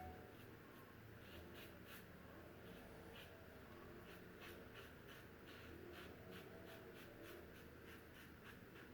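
Faint scratchy scraping of a double-edge safety razor with a Personna Red blade cutting stubble through shaving lather, in short repeated strokes.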